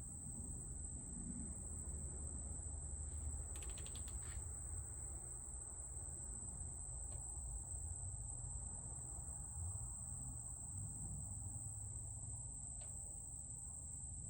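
Steady high-pitched cricket trill over a low background hum, with a short run of light clicks about three and a half seconds in and a couple of single faint clicks later.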